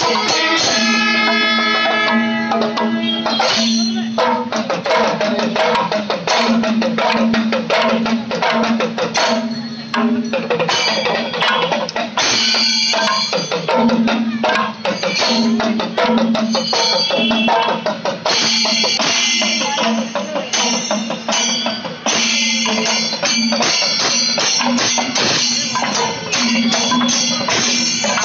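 Kerala temple procession music: drums beat fast and without pause while kombu, the C-shaped brass horns, blast in chords, strongest in the first few seconds and again in later stretches, over a steady held note.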